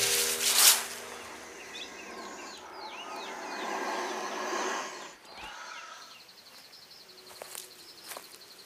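Forest ambience: a brief loud rush of noise in the first second, then several short bird chirps, and later a fast, evenly pulsing insect trill.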